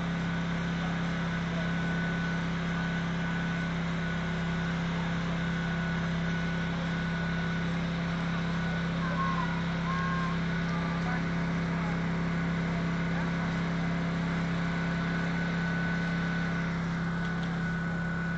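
A steady low machine hum with a faint high whine held above it.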